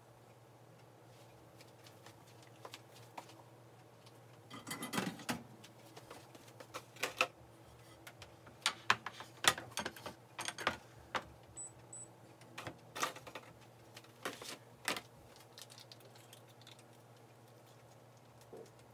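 Kitchen items being handled: scattered clicks and knocks as a frying pan is set on a glass cooktop and a ceramic bowl and kitchen scissors are moved about, over a low steady hum.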